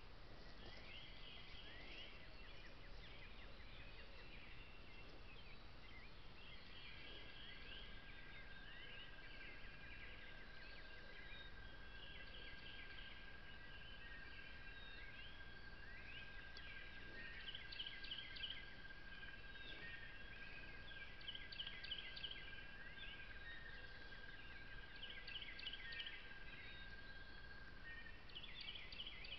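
Faint songbirds singing at dawn, several birds repeating short chirped and trilled phrases over and over. A steady thin tone sets in after several seconds and stops shortly before the end.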